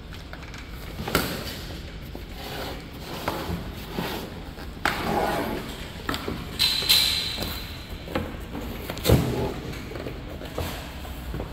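Handling noise from a 1U rack-mount switch chassis being turned over on a wooden table: several separate knocks and thuds, the loudest about nine seconds in, with a brief high squeak about seven seconds in.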